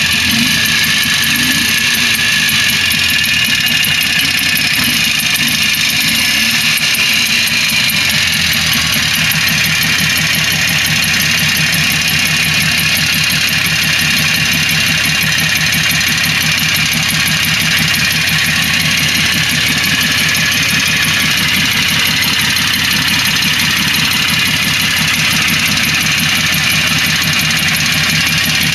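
Freshly rebuilt Excelsior Talisman air-cooled two-stroke twin engine of a Berkeley T60 running steadily at idle with an even, rapid firing rhythm.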